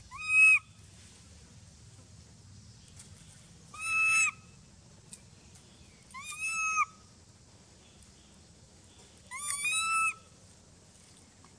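Four high-pitched, drawn-out coo calls from a young long-tailed macaque, about three seconds apart, each rising, holding, then dropping at the end. The last call starts with a short note that runs into a longer one.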